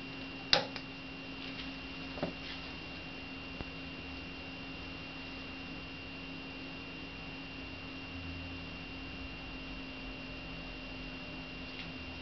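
Steady electrical hum with a thin high-pitched whine over it, and a sharp click about half a second in.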